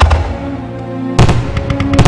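Music with the sharp bangs of fireworks mixed in: one at the start and another just over a second in.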